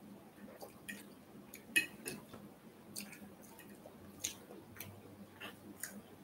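Quiet chewing of soft food (baked fish, rice and broccoli), with short sharp clicks scattered through it every half second to a second, from the mouth and from a fork touching a glass plate.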